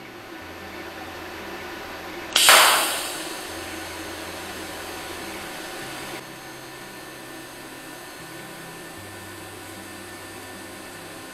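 TIG welding arc on a steel plate. After a steady hiss, the arc strikes about two seconds in with a sudden loud crackle and settles into a steady hissing buzz, which drops slightly a few seconds later.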